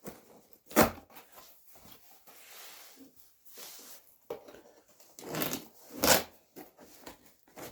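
Cardboard shipping box being opened by hand: rustling and tearing of the box and its packing, with a few sharp knocks as it is handled.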